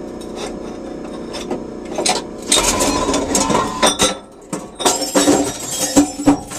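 Envipco CF1500G reverse vending machine handling a glass bottle: a steady machine hum, then from about two and a half seconds in loud clattering and clinking of glass with sharp knocks.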